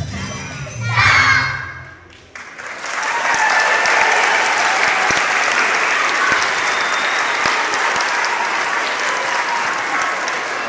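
A song with children singing ends in a loud final note about a second in; after a brief lull, the audience applauds steadily.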